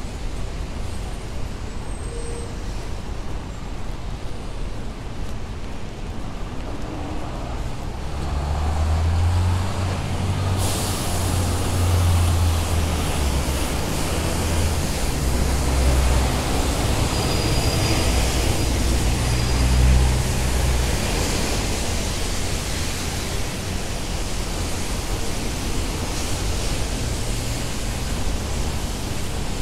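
Wet city street traffic: a heavy vehicle's engine rumbles past, loudest in the middle, over a steady hiss of rain and tyres on wet road that turns brighter about ten seconds in. A short high squeal comes near the middle.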